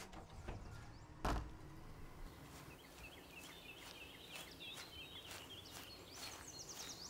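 Quiet outdoor ambience with small birds chirping, beginning about three seconds in. Soft footsteps sound on grass. A single dull thump comes about a second in.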